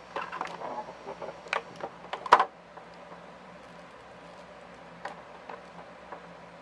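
Plastic action figure being handled and posed, its parts and joints clicking and tapping: a quick run of clicks in the first couple of seconds, the loudest about two and a half seconds in, then a few faint clicks later.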